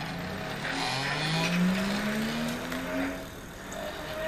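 Electric rear hub motor of a recumbent reverse trike whining as the trike accelerates away, the whine rising in pitch for about two and a half seconds, over tyre noise on a gravel drive.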